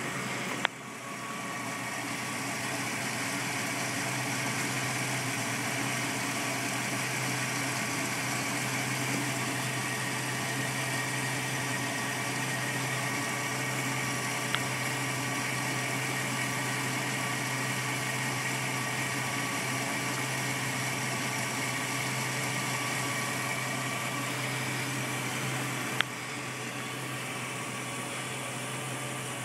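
2004 Jeep Grand Cherokee Overland's 4.7-litre H.O. V8 idling steadily with a slight rough idle, which the owner first took for a vacuum leak and later traced to failing catalytic converters. Three sharp clicks sound, one near the start, one midway and one near the end.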